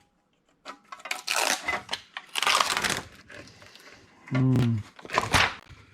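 Thin sheet-metal front panel of a console being pried and peeled up by hand, scraping and rattling in irregular bursts with sharp metallic clicks.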